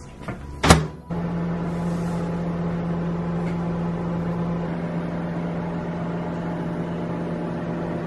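Microwave oven door shut with a sharp click, then about a second in the oven starts running with a steady low hum as it heats a bowl of soapy water.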